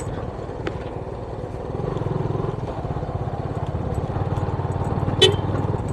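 Motorcycle engine running as the bike is ridden, a steady low pulsing that gets louder about two seconds in. A single short click sounds near the end.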